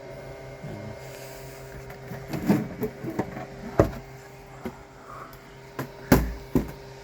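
Scattered knocks and clicks of hard objects being handled and set down on a workbench: a cluster of small clatters in the middle, then two sharper knocks near the end. Under them runs a steady electrical hum.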